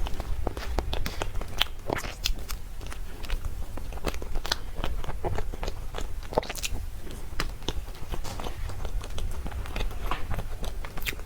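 Close-miked eating: a person chewing and biting soft cake, with irregular wet mouth clicks and small crackles over a steady low rumble.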